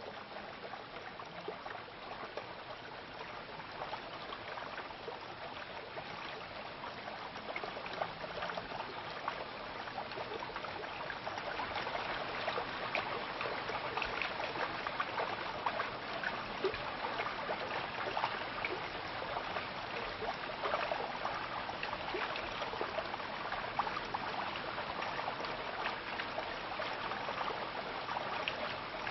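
Stream water running and splashing over rocks: a steady rushing and trickling that grows a little louder about ten seconds in.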